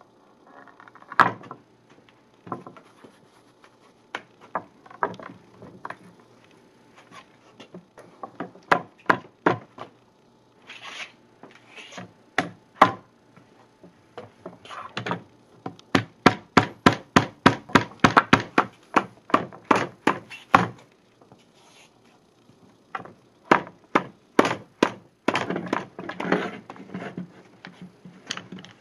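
Sharp knocks and clicks of the wooden longboard halves and metal bar clamps being set on a workbench during a glue-up, including a quick run of clicks about three a second in the middle.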